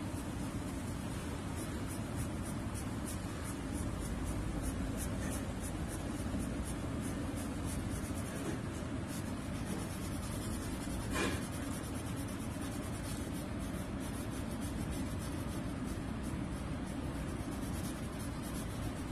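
Blue colored pencil scratching on paper in quick repeated back-and-forth shading strokes, with a single tap about eleven seconds in.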